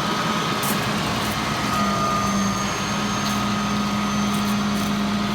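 A container delivery truck's engine running steadily, with a steady low hum and a thin high whine over it.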